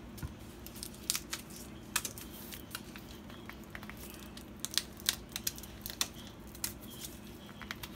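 Scattered light clicks and taps, irregular and a few each second, as barbecue sauce is put all over pig feet in a pan. A steady low hum runs underneath.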